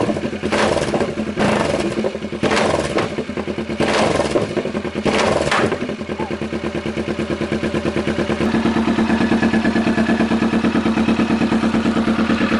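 Kawasaki Vulcan S 650's parallel-twin engine running loud through a new Danmoto Highwayman full aftermarket exhaust: revved in about four short blips with pops between them, then settling into a steady idle about halfway through. The popping is the sign of the engine now running lean on the free-flowing exhaust.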